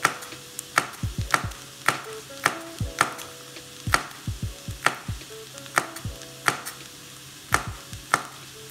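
Wide cleaver-style knife chopping a green chilli on a bamboo cutting board: sharp knocks of the blade striking the wood, uneven, about two or three a second.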